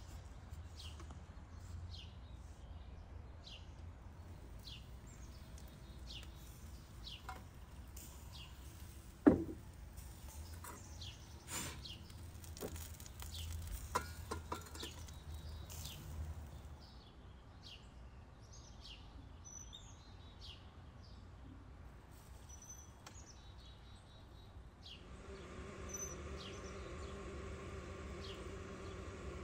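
Small birds chirping in short, repeated calls. A single sharp knock comes about nine seconds in, the loudest sound. Near the end a steady hum with several pitches sets in.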